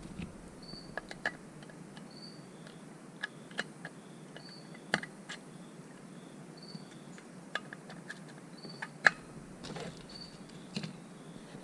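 Scattered light clicks and taps of small metal chainsaw parts and pliers being handled while the chain brake lever is fitted on its pin on a Farmertec MS440 crankcase, the sharpest click about nine seconds in. A cricket chirps faintly about once every second and a half.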